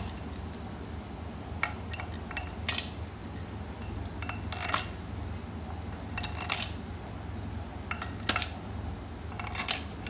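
Short, sharp metallic clinks of tools and bolts being handled, single and in small clusters every second or two, over a steady low hum.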